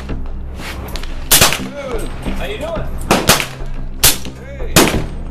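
Four sharp gunshots from a suppressed Sig Sauer MCX Rattler .300 Blackout rifle, the first about a second in and the rest a second or less apart. They are fired for an accuracy group, over a steady low hum.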